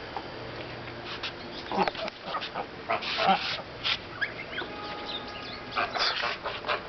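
Backyard geese and other poultry calling, with a run of short honks and squawks starting about two seconds in.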